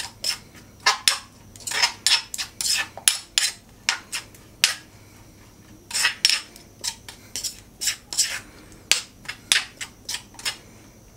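Metal spoon stirring a wet chili and shrimp-paste dip in a stone mortar, scraping and clinking against the stone in quick, irregular strokes, with a short pause partway through.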